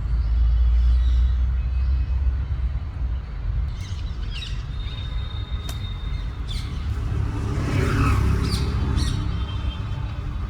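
Parrots calling in short squawks and chirps, a cluster about four seconds in and another near the end, over a steady low rumble.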